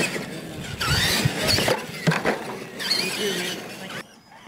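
Electric R/C monster trucks running on dirt: motor and gear whine sliding up and down in pitch in short bursts as the trucks rev and slow, over a rough scrabbling noise. The sound drops away sharply about four seconds in.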